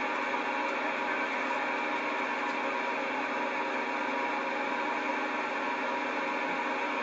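Steady static hiss from a CB radio receiver's speaker, tuned to an open channel with no station transmitting.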